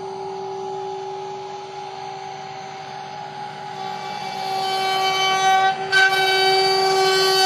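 Milling machine's router spindle whining at a steady pitch as it surfaces an elm slab. It gets louder and sharper about four seconds in as the cutter takes more wood, with a brief dip near six seconds.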